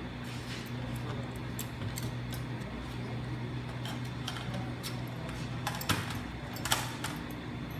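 Light metallic clicks and clinks of M16A1 rifle parts being handled, with two sharper clacks about six and seven seconds in, over a steady low hum.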